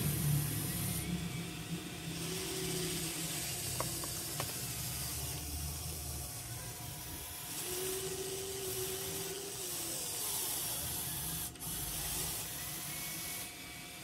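Small electric motors of a Huina 580 RC excavator whirring in stop-start bursts as the boom and bucket move, with a thin whine in some bursts and a couple of light clicks.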